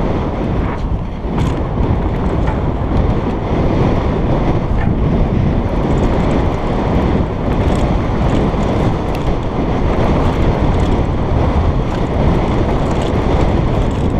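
Wind buffeting a helmet-mounted action camera's microphone as a mountain bike descends a dirt trail at speed, mixed with tyre rumble on the dirt. A few faint clicks and rattles from the bike come through.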